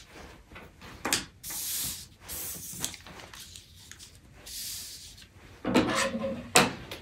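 Paper pattern pieces being slid and pushed across a wooden table by hand: several soft paper swishes and rustles, broken by a few light knocks. Near the end comes a short creak and then a sharper knock, the loudest sound in the stretch.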